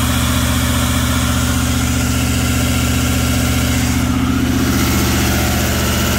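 2018 L5P Duramax 6.6-litre V8 turbo-diesel running steadily at fast idle, with its truck-mounted air compressor running.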